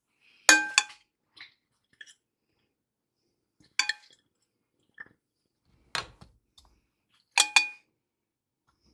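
Metal spoon clinking against a glass mixing bowl while scooping sliced apples, with short ringing clinks: two quick ones about half a second in, one near four seconds, a duller knock around six seconds, and two more quick clinks near the end.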